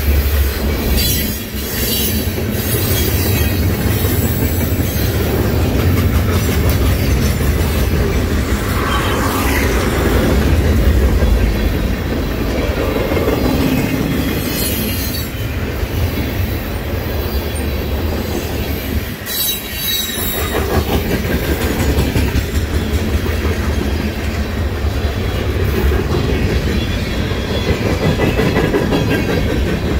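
Freight cars of a long mixed train rolling past at close range: a steady loud rumble of steel wheels on the rails, with a few brief high screeches now and then.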